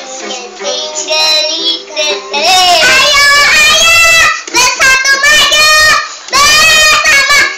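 A young girl singing a march song, softly at first and then loudly from about two and a half seconds in, in phrases with short pauses between them.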